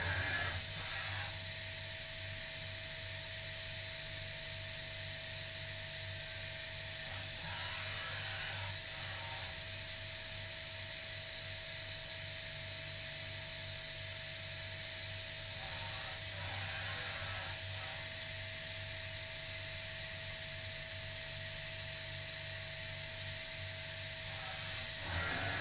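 Mazak Variaxis i700 five-axis machining centre running, its axis drives moving the spindle head down over the workpiece and back up with a steady whine and low hum. Brief louder stretches of motion come about 8 and 17 seconds in.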